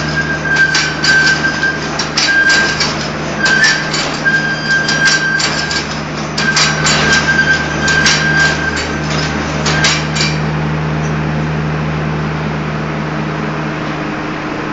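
Hexagonal wire netting (gabion) machine running, with a steady hum under rapid metallic clattering and knocking and a high tone that comes and goes. The clattering stops about ten seconds in, leaving only the steady machine hum.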